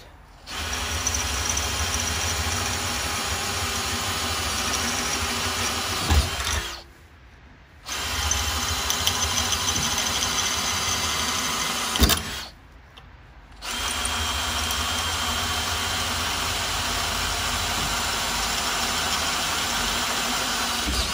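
Hand-held power drill with a twist bit boring out a hole in a steel bracket clamped in a bench vise, enlarging it for bigger bolts. It runs steadily in three long stretches with two short pauses between them, and a sharp knock comes just before each of the first two stops.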